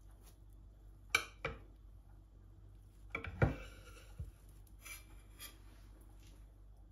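Long serrated knife sawing through a layered chocolate sponge cake and knocking and scraping on a marble board. There are two sharp clicks about a second in, a louder run of clicks and scraping around three and a half seconds, and fainter scrapes after.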